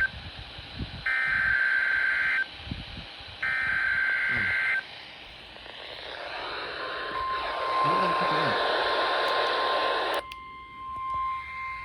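NOAA Weather Radio SAME alert header: harsh, warbling digital data bursts, each about a second long, with two full bursts after the tail of the first. Then radio hiss, and from about seven seconds in the steady single-pitch weather radio warning alarm tone, which signals that an alert message follows.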